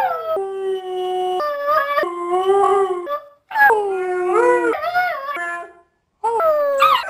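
Siberian husky puppy howling: three long howls with brief breaks between them, each sliding down in pitch at the start and then holding or wavering.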